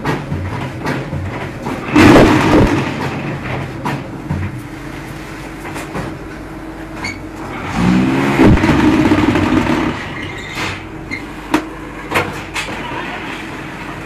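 Concrete hollow-block machine running: a steady motor hum, with a loud surge of shaking about two seconds in and a longer one around eight seconds in as a motor speeds up. Sharp metal clanks follow near the end as a pallet of formed blocks is pushed out.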